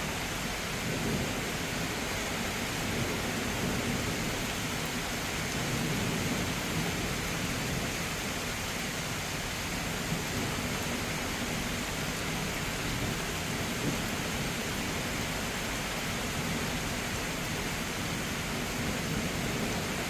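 Steady heavy rain during a thunderstorm, with a few soft low rumbles of thunder under it.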